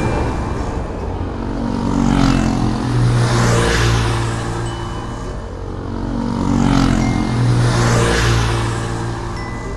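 Vehicle noise rising and falling in repeated swells about every second and a half, like a string of vehicles passing close by.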